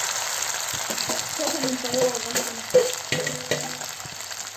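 Small whole fish sizzling as they deep-fry in hot oil in a metal pan, with a slotted spoon stirring them and clicking against the pan. The sizzle eases off a little near the end.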